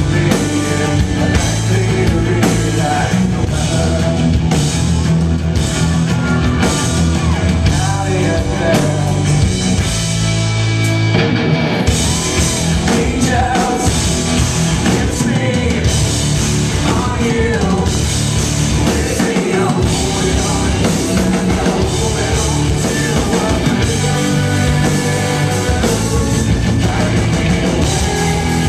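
Rock band playing live and loud: electric guitar, bass guitar and drum kit under sung vocals. The sound thins briefly about eleven seconds in, then the full band comes back in.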